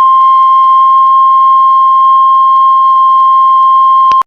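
Heart monitor flatline: one long, steady, high beep that cuts off suddenly near the end. It is the continuous tone of a cardiac monitor when the heart has stopped.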